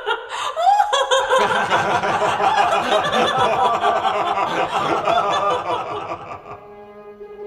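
One high voice laughing in rising 'ha-ha' peals, joined about a second and a half in by several voices laughing together. The laughter fades about six and a half seconds in, as quiet orchestral music begins with sustained notes.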